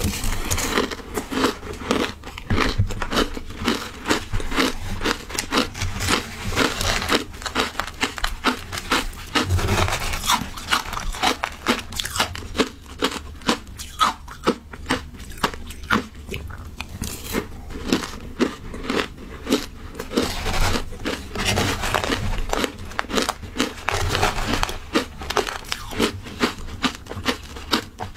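Matcha shaved ice being bitten and chewed close to a clip-on microphone: a continuous run of crisp, crackling crunches, mouthful after mouthful.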